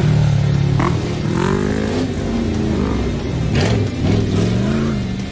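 Stripped-down Jeep Grand Cherokee racing on a dirt track, its engine revving hard with the pitch rising and falling as the throttle goes on and off, with a few sharp cracks among it.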